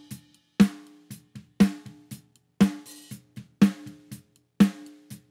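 Recorded snare drum played back in a mix: one hard hit about once a second, each leaving a ringing tone, with quieter strokes between. It is being EQ'd, with about 6 dB cut around 600 Hz and a slight lift at 1.5 kHz.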